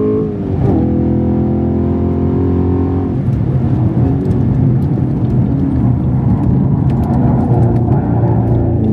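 In-cabin sound of a 2023 Camaro SS 1LE's 6.2-litre naturally aspirated V8 at track speed, running at a steady pitch. Less than a second in, the pitch and level dip briefly. From about three seconds the engine note turns rougher and less even, and it starts rising again near the end.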